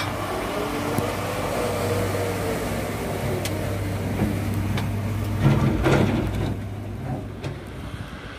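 Dump truck's diesel engine running as the truck drives off over a rough quarry track, heard from inside the cab, its revs rising and falling in the first few seconds. A few knocks and rattles from the truck body come around five to six seconds in.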